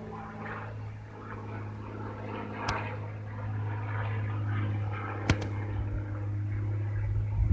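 Single-engine Cessna light plane flying overhead, its piston engine and propeller a steady low drone that grows slightly louder partway through. Two sharp clicks stand out, about a third and two thirds of the way in.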